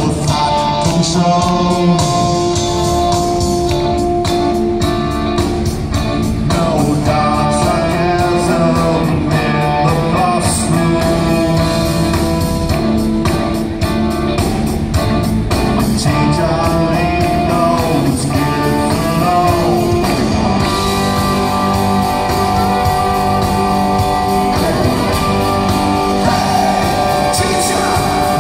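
Live rock band playing through a loud arena PA, with electric and acoustic guitars, drums and a fiddle carrying sustained, sliding melody lines.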